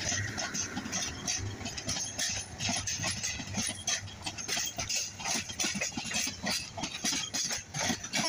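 Intercity passenger coaches rolling past on curved track, their wheels clattering over rail joints and points in an uneven stream of clicks and knocks over a low rumble.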